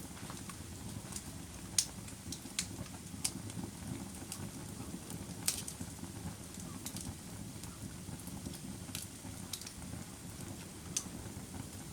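Campfire burning, with a steady low rumble under irregular sharp crackles and pops, a handful every few seconds.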